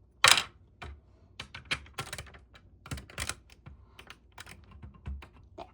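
Small plastic LEGO bricks clicking and clattering as pieces are sorted through and handled, a string of irregular sharp clicks with a louder clatter just after the start.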